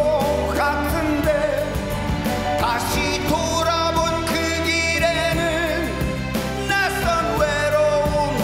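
A man singing a trot song in a deep voice into a microphone, over instrumental backing.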